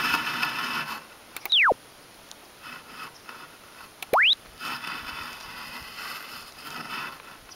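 Electronic sound-effect tones from the stylus logging software: a smooth falling pitch sweep about a second and a half in, and a smooth rising sweep about four seconds in. Between them, a rough scratchy hiss runs for about the first second and again for most of the last three seconds, as the stylus tip is drawn through sand.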